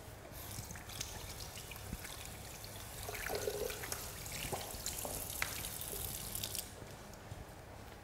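Water running from a tap into a basin sink and splashing over hands being washed under it; the flow shuts off about six and a half seconds in.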